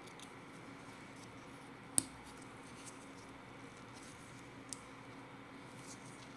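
Faint handling of a small watch case by hand, with one sharp click about two seconds in and a fainter click near five seconds as the case and its back are pressed together with the fingers.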